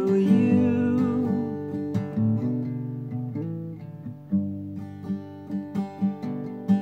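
Acoustic guitar playing strummed chords. The chords ring and fade through the middle, then sharp strokes return in a steady rhythm from about four seconds in.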